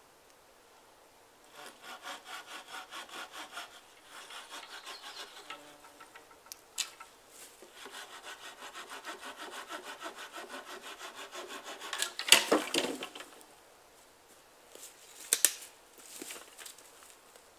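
Hand saw cutting through a log in quick back-and-forth strokes, about four a second, in three spells with short pauses. About twelve seconds in comes a single loud crack, the loudest sound, followed a few seconds later by a few light knocks.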